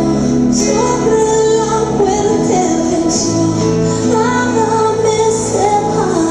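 Worship song playing: a woman's voice sings long held, gliding notes over steady band accompaniment with sustained bass notes.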